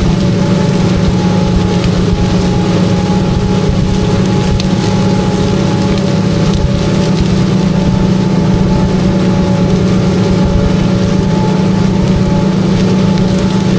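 Tractor running steadily under load, pulling an in-line ripper through corn stubble: an even engine hum with a steady hiss over it.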